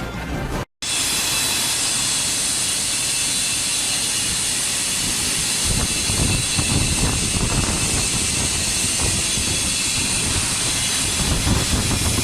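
Omega 350T TIG welder's arc running, a steady hiss with a rougher crackle underneath that grows stronger about six seconds in.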